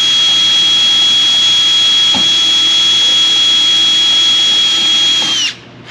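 Cordless drill running at a steady high whine while drilling a rivet hole in a light bar's wind diffuser. It is released about five and a half seconds in, and its pitch drops as the motor spins down.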